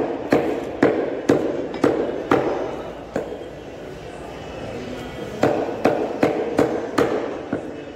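Butcher's cleaver chopping chicken pieces on a wooden chopping block: sharp strokes about twice a second, a pause of about two seconds, then another quick run of strokes.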